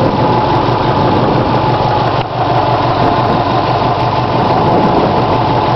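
2002 Subaru WRX's turbocharged flat-four engine idling with a rapid, repeating engine knock, which the owner suspects is a bent valve.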